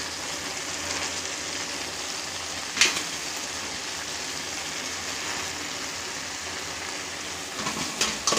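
Steady hiss from a pan of dal and leafy greens cooking on a gas stove, with one sharp knock about three seconds in.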